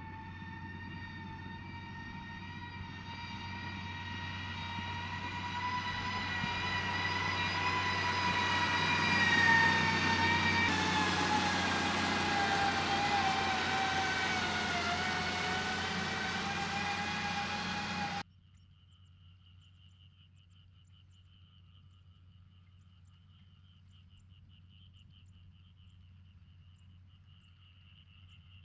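A passing truck with a high, steady whine that grows louder as it approaches, then falls in pitch as it goes by. The sound cuts off suddenly about two-thirds of the way in, leaving faint insect chirping.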